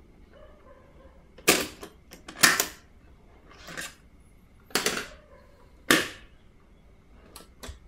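Mechanical clunks from a Nakamichi 600II cassette deck's piano-key transport and cassette door as the tape is ejected, taken out and the door shut: five sharp clunks about a second apart, the third softer, then two light ticks near the end.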